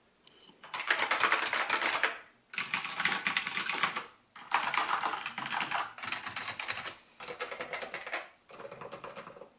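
Fast typing on a mechanical keyboard: rapid runs of key clicks in bursts of one to two seconds, with short pauses between them.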